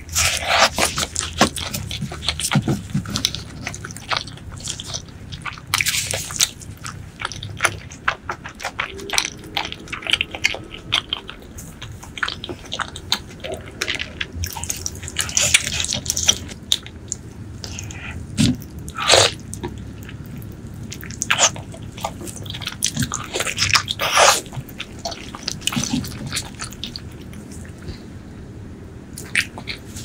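Close-miked eating sounds: wet chewing and lip-smacking of braised pork leg and rice, with many irregular sharp clicks and sticky mouth pops.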